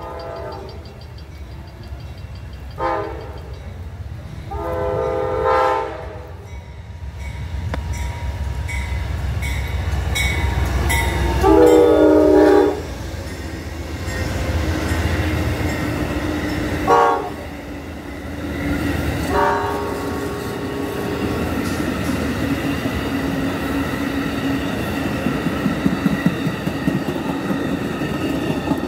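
Amtrak GE P42DC diesel locomotive's horn sounding a chord: two short toots, then long, long, short, long. The last four match the standard grade-crossing signal. The diesel rumble builds as the locomotives pass, followed by the steady roll and wheel clatter of the passenger cars going by.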